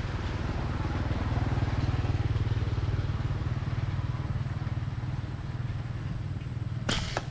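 A small engine running steadily with a low, rapid pulse, a little louder about two seconds in and then easing off, with a short rustle near the end.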